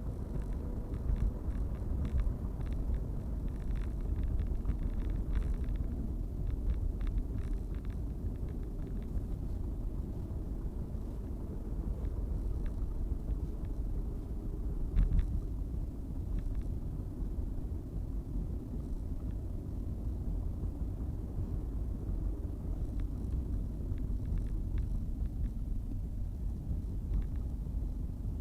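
A steady low rumble with scattered faint clicks and ticks above it.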